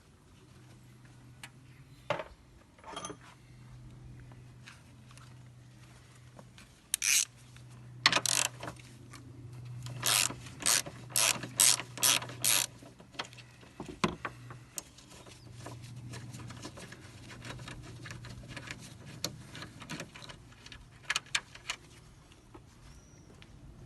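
Ratchet wrench clicking in short runs of strokes while bolts are worked loose, mixed with scattered clinks of tools on metal.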